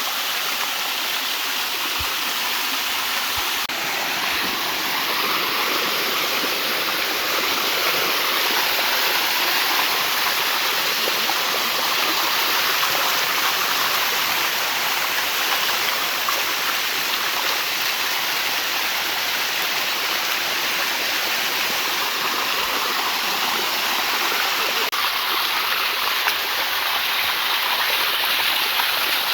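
Water cascading over a limestone waterfall: a steady, even rushing that holds unchanged throughout.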